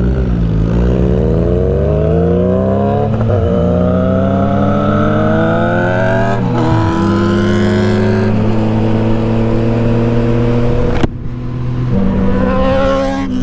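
Motorcycle engine accelerating hard, its pitch climbing through gears with shifts about three and six and a half seconds in, then holding steady. A sharp crack about eleven seconds in is followed by another rising rev near the end.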